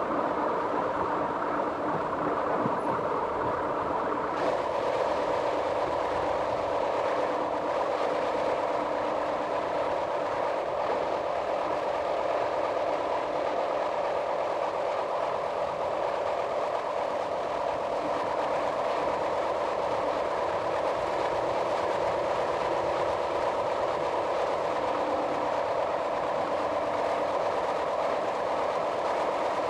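Metre-gauge train running along the line, heard from the driver's cab: a steady running noise with a steady hum of several tones, which changes and grows a little brighter about four and a half seconds in.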